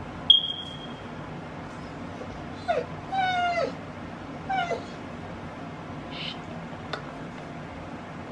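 A cat meowing three times, the middle call the longest and falling in pitch. Just before, a short sharp high squeak is the loudest sound, and there is a single click near the end.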